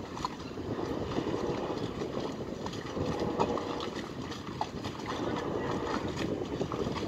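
Harbour background noise: a steady low rumble with scattered light clicks and knocks.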